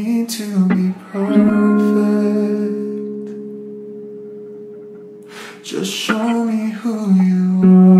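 Background song with guitar. A long chord rings and slowly fades through the middle, then the guitar starts up again after about five and a half seconds.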